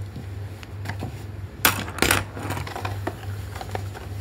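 A cardboard toy box and its plastic packaging being handled: scattered light clicks, and two sharp knocks close together a little under two seconds in. A steady low hum runs underneath.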